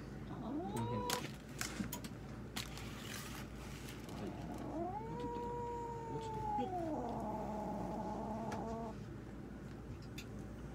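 Domestic cat yowling in protest while restrained for an X-ray: a short rising cry about half a second in, then one long yowl that rises, holds and falls, followed by a lower, wavering moan that stops about nine seconds in. A few soft clicks come in between the cries.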